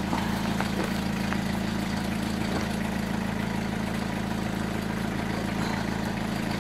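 A truck engine idling steadily: a low, even hum that does not change.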